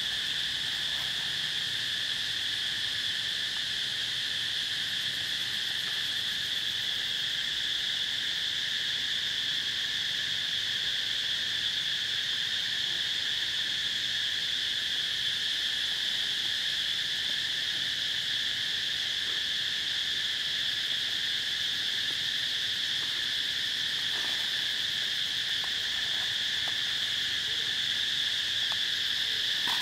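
Steady chorus of insects: one unbroken high-pitched drone with a fainter, lower tone beneath it.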